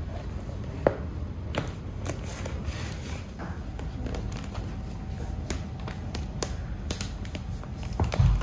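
Bento preparation by hand: scattered light clicks and taps over a steady low hum, with a sharp knock about a second in and a heavier thump near the end.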